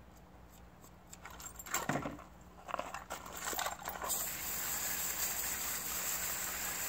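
Metal gun parts clinking and knocking as they are handled. About four seconds in, a steady hiss of water spraying from a garden hose nozzle begins.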